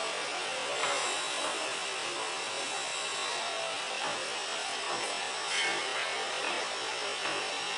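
Steady background hiss, with a few faint rustles and soft taps as hands scoop shredded vegetable filling into a folded samosa pastry sheet.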